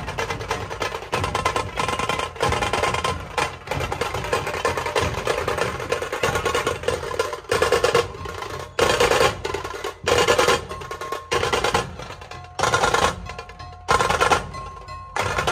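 Dhol tasha pathak drumming: large barrel dhols and high, snare-like tashas played together in a fast, dense rhythm. About halfway through it breaks into short repeated phrases with brief dips between them.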